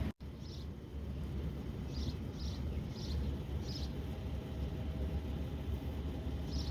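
Outdoor ambience: a steady low rumble with about six short, faint high chirps scattered through it.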